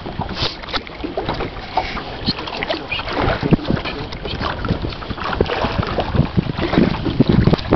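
Wind buffeting the microphone and water splashing around a boat on the river, with many irregular knocks and rustles throughout.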